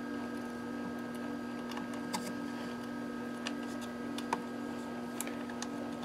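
A few faint small metallic clicks as a nut and washer are threaded by hand onto a BNC panel connector, over a steady electrical hum.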